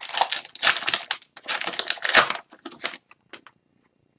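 Wrapper of an Upper Deck Series 2 hockey card pack crinkling in bursts as it is pulled open and the cards slid out, for about three seconds, then only a few light clicks.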